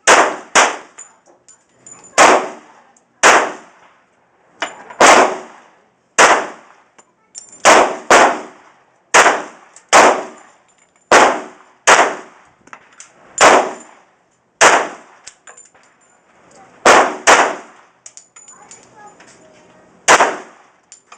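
Glock 30 pistol firing .45 ACP rounds: a long string of single shots about a second apart, some in quick pairs, each with a short ringing tail, with a pause before a last shot near the end.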